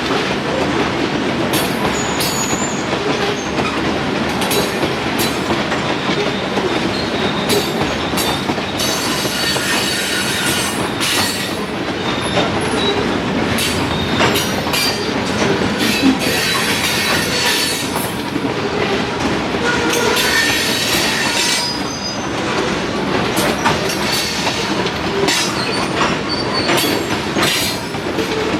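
Freight train cars rolling past on jointed track: a steady rumble of steel wheels with repeated clicks over the rail joints and brief high-pitched wheel squeals now and then.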